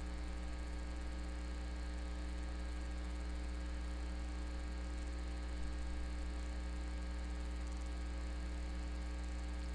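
Steady electrical mains hum with a stack of overtones, unchanging throughout.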